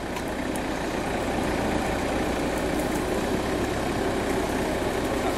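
Engine of a modified off-road trial truck running at low, steady revs as it crawls forward through swampy grass.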